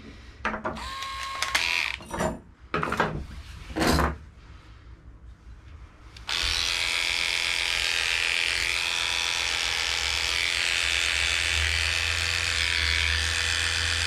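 A few clicks and knocks of grooming tools being handled on the table, then, about six seconds in, a Heiniger cordless dog clipper switches on and runs steadily as it trims the fur of a Shih Tzu's paw.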